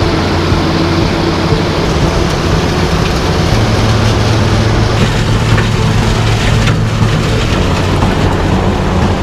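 Wirtgen WR 250 pavement recycler working: its diesel engine runs steadily under load while the milling drum grinds up the asphalt and base for full-depth reclamation. The result is a loud, continuous engine drone beneath a gritty crushing noise.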